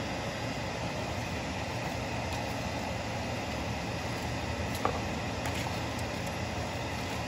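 Cabbage and vegetables cooking in an oiled nonstick pan: a steady hiss with a low hum under it, and the spatula stirring them, knocking once against the pan about five seconds in.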